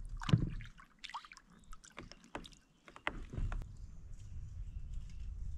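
A released crappie splashes into the water about a third of a second in, followed by scattered knocks and clicks of handling on the plastic kayak. From about three seconds in a low steady rumble runs on.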